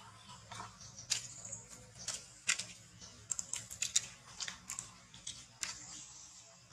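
Young long-tailed macaques giving short, sharp, high squeaks in an irregular run while they scuffle, several in quick succession about halfway through.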